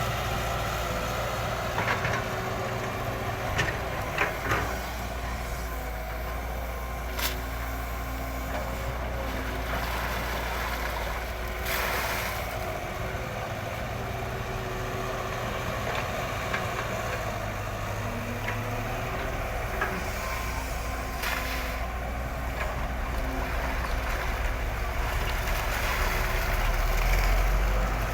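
Radio-controlled excavator and truck models working: a steady mechanical drone with a few sharp clicks and two short hisses.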